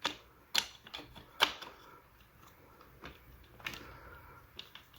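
Sharp plastic-and-metal clicks and knocks of a suitcase's telescoping handle being fitted onto its metal rods: a few quick knocks in the first second and a half, the loudest about a second and a half in, another a little before four seconds, with faint ticks between.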